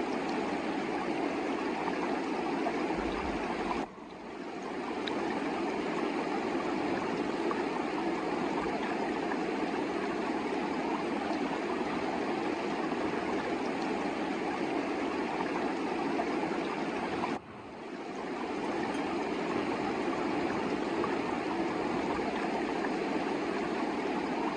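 Steady rushing of a mountain river flowing over rocks. The rush drops away sharply twice, about four seconds in and again near seventeen seconds, and swells back within a second each time.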